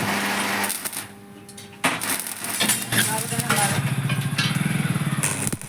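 A small engine running with rattling and clatter. It drops away briefly about a second in, then comes back with an even pulsing beat.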